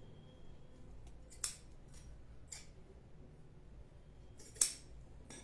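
Scissors snipping: three clear short cuts with fainter clicks between them, the last, near the end, the loudest.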